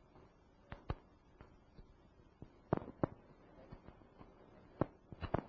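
Scattered sharp clicks, two of them in quick pairs, with a faster cluster near the end, over faint room hiss.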